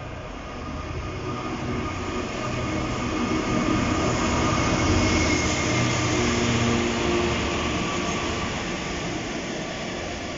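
A freight train headed by several GB Railfreight diesel locomotives, Class 66s and Class 69 number 69002, each with a two-stroke EMD V12 engine, passes close by. The engine rumble and wheel noise swell to a peak about halfway through, then slowly fade as the loaded hopper wagons follow.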